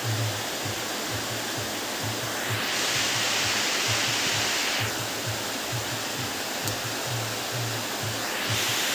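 Heavy rain falling steadily, a dense hiss that grows louder twice, from about two and a half seconds to five and again near the end.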